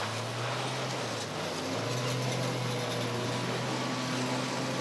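Engines of several battered cars running laps on a short asphalt oval: a steady engine drone over a haze of track noise.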